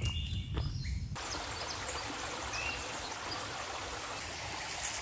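Steady rushing of a small forest creek over rocks, starting abruptly about a second in. It is preceded by a hiker's footsteps and a short bird chirp.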